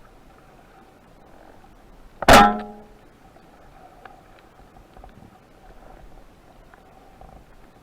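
A single sharp crack of a speargun firing, with the shaft ringing briefly in a twang that fades within about half a second, against steady underwater hiss.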